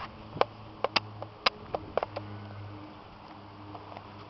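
Footsteps on concrete: sharp taps about twice a second, thinning out after about two seconds, over a faint low hum.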